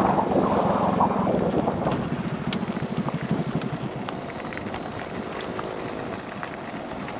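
Honda Unicorn motorcycle's single-cylinder engine running as the bike rolls along a dirt track, with wind on the microphone. It is loudest for the first two seconds, then the engine beat slows and it eases off to a lower, steadier running as the bike slows down.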